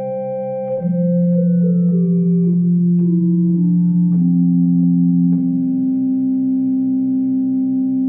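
Electronic keyboard playing held chords whose notes do not die away. From about a second in, a melody steps down note by note over a sustained low note, then settles on a held chord.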